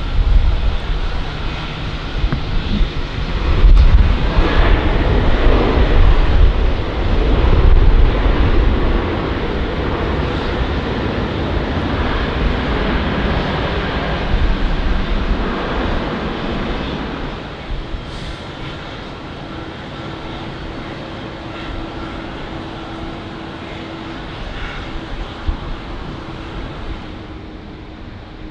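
Boeing 747 freighter's four jet engines at takeoff power on a wet runway: a loud, deep rumble that holds for about seventeen seconds, then fades to a quieter steady hum as the jet moves away.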